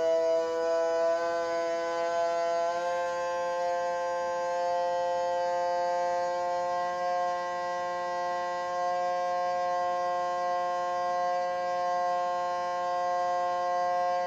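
Countertop vacuum sealer's pump running, drawing the air out of a bag of frozen sweet potato chunks: a steady whining hum whose pitch steps up slightly twice in the first few seconds, then holds.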